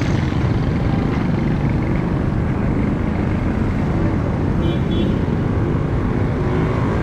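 Steady street traffic noise from passing cars, motorbikes and rickshaws, with a brief high beep about five seconds in.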